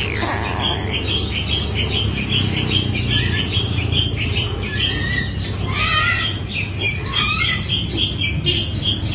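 An animal's high, rapid chirping calls, repeated several times a second, with a few longer squawking glides about two thirds of the way through.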